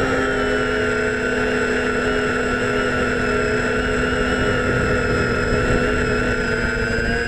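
DJI F550 Flamewheel hexacopter's brushless motors and propellers whining steadily in flight, picked up by the GoPro on the frame. Several steady pitches sound at once over a rough low rumble of air buffeting the microphone, and the pitches shift slightly near the end.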